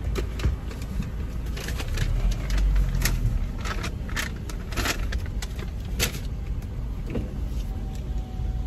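Paper fast-food bag and wrappers crinkling and rustling in a stream of short crackles as food is unpacked by hand, over a low steady rumble.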